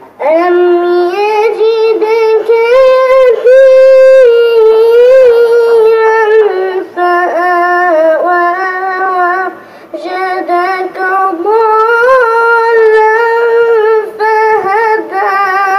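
A boy's voice reciting the Quran in melodic tajweed style, drawing out long notes with ornamented turns. The phrase breaks briefly about seven and ten seconds in.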